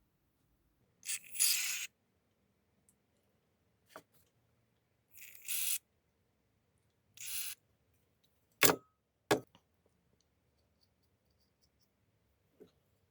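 Three short hissing squirts of aerosol carburettor cleaner sprayed through a carburettor part, then two sharp knocks of parts being handled on the bench.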